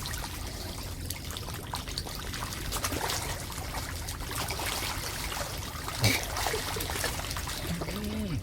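Water trickling and pouring steadily, with a sharp louder sound about six seconds in and a short pitched sound that rises and falls near the end.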